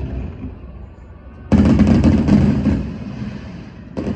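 Fireworks shells bursting: a loud boom about a second and a half in, trailing off in crackling over the next two seconds, and another burst just before the end.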